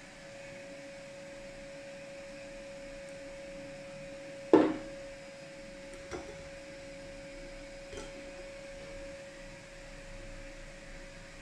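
A sharp knock about halfway through as the coffee container is set down on the wooden table, then two lighter knocks as the plastic pour-over dripper on the kitchen scale is handled. A steady mid-pitched hum runs underneath.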